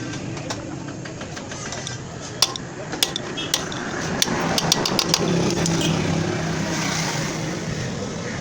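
Honda CG 125 single-cylinder four-stroke engine running steadily, with a string of sharp metallic clicks and clinks in the middle few seconds.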